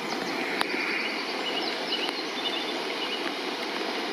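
River Barle in flood, brown water rushing steadily through and around the stone slabs of a clapper bridge. A small bird calls over it in runs of quick, high chirps.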